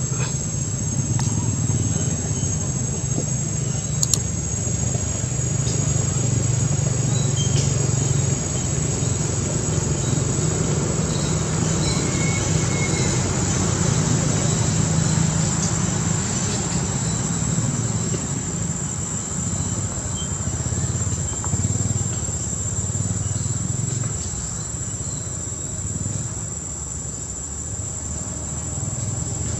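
Steady high-pitched drone of insects, over a low rumble.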